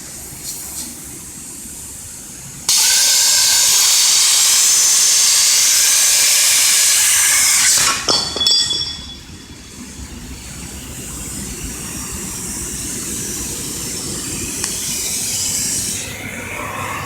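CNC plasma cutting torch cutting a steel pipe: a loud, steady hiss starts abruptly about three seconds in and cuts off suddenly about eight seconds in with a click. A softer hissing noise follows and slowly grows louder.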